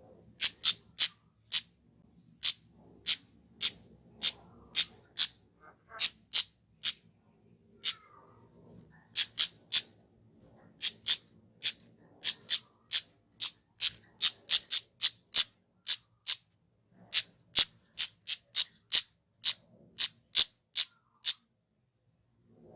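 Flowerpecker (kemade) calling with sharp, high-pitched 'cit' notes, each very short. They come singly or in quick runs of two to four with brief pauses between.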